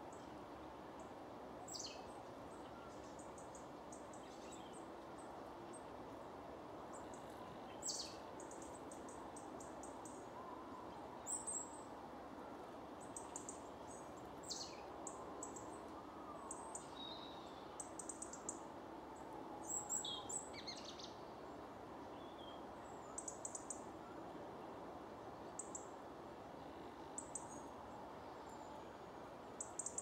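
Small birds, coal tits among them, calling: thin, very high-pitched calls and short rapid trills, with a few notes sweeping downward, scattered irregularly over a steady background noise.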